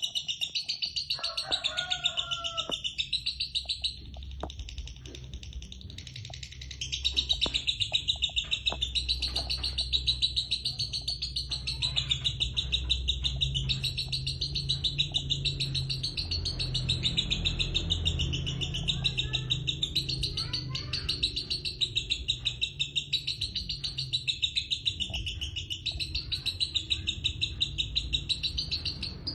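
Lutino lovebird singing a long, fast chatter (ngekek) of many short high notes a second, softening for a few seconds about four seconds in and then running on almost without a break. The nearly nonstop run is what bird keepers call a 'konslet' lovebird.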